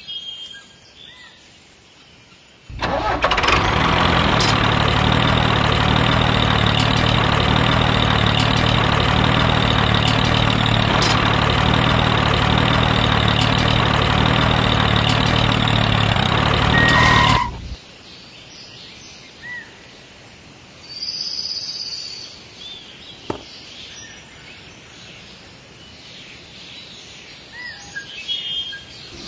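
Tractor engine running steadily. It starts abruptly about three seconds in and cuts off about seventeen seconds in. After that there is a quiet outdoor background with a few short bird chirps.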